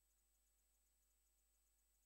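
Near silence: only a faint, steady hiss with a thin high tone and a low hum underneath, as from a silent film transfer.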